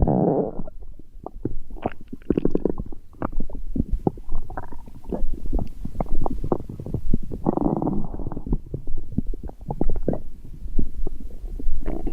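A person's stomach growling and gurgling: a rapid, irregular run of short gurgles and squelches, with a longer low rumble about seven and a half seconds in.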